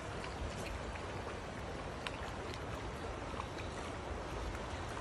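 Steady rush of a shallow stream running over rocks, an even hiss of moving water.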